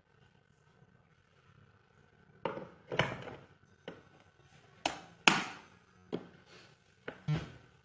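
Clacks and knocks of a stainless steel electric kettle being handled: its hinged lid is snapped shut and the kettle knocked against its base, about six sharp knocks, the loudest a little past halfway.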